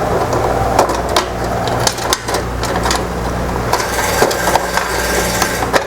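Irregular clicks, knocks and rattles of desktop PC parts being handled as cables and connectors are pulled out of the case, over a steady low hum.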